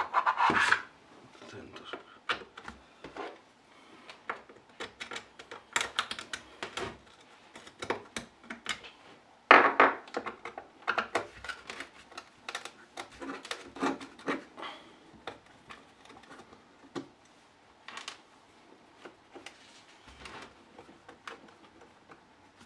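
Hand tools and parts of a CMP 230 concrete vibrator clicking, knocking and scraping as the machine is taken apart and cleaned by hand: irregular clicks and knocks, the loudest about ten seconds in.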